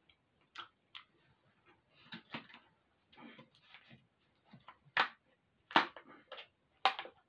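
Plastic screw cap on a large plastic wine bottle being twisted open by hand: scattered small plastic clicks and scrapes, then a few sharp, louder snaps in the second half as the cap comes loose.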